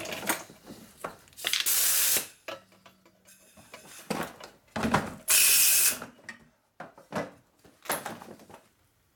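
Two short blasts of compressed air, each under a second, clearing cutting chips out of a freshly drilled stitch-pin hole in a cast-iron engine block. Between the blasts come brief knocks and handling sounds.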